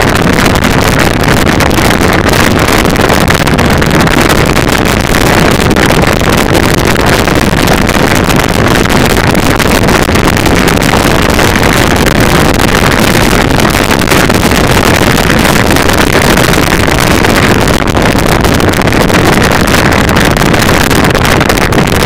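Motorcycle riding steadily at road speed, heard from a camera on the bike: loud, even wind rush on the microphone mixed with the engine running.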